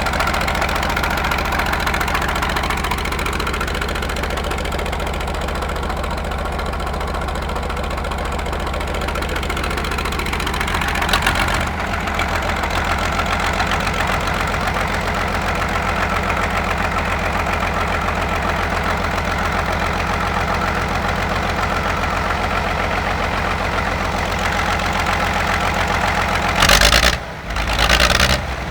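Large engine idling steadily with an even low rumble, with a brief loud disturbance near the end.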